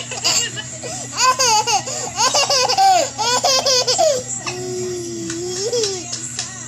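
Toddler laughing in quick repeated bursts of giggles, then one long drawn-out voice sound that rises at its end.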